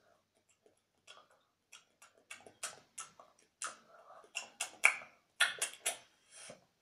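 A quick run of short, irregular clicks and smacks, about a dozen, starting about a second in and stopping near the end: mouth clicks and lip smacks as a glowing magic light is put into the mouth.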